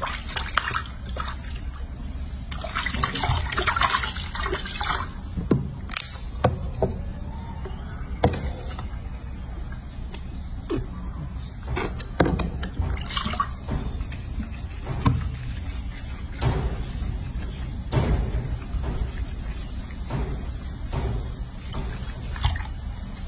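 Water sloshing and splashing in a washbasin as a baby monkey sitting in it is washed and scrubbed by hand, with many short splashes and knocks scattered over a steady low hum.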